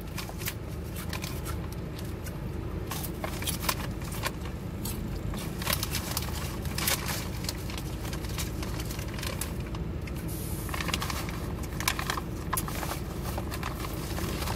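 A person biting into and chewing a mouthful of sandwich close to the microphone: crunching lettuce and irregular wet mouth clicks and crackles, over a steady low hum.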